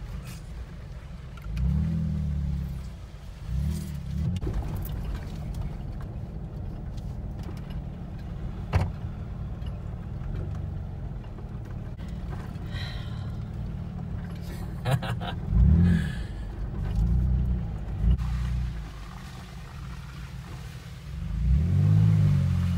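Jeep engine running at crawling speed on a dirt trail, revving up and back down several times, with a few knocks from the vehicle jolting over the rough ground.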